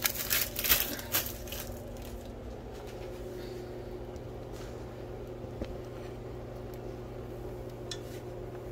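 A few quick clatters and knocks of kitchenware being handled by the stove in the first second, then only a steady low hum.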